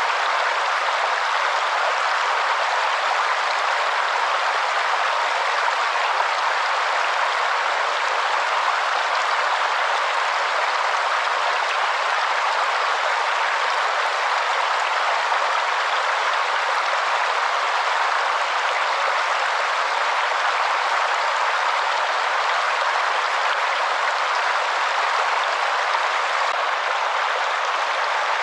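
Waterfall: a steady, unbroken rush of falling water, an even hiss with no deep rumble.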